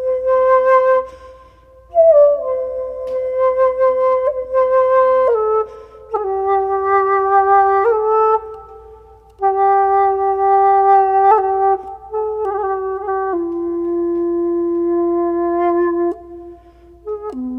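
Music: a slow solo melody of long held notes in a single line, with a few short gaps between phrases.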